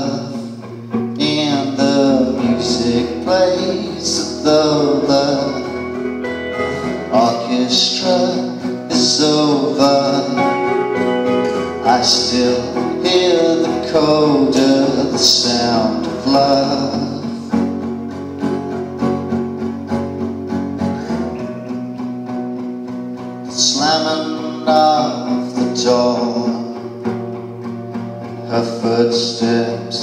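Live acoustic guitar strumming with an electric guitar, playing a slow song together. A melody line with pitch bends and vibrato comes in about two seconds in, drops out past the middle and returns briefly later.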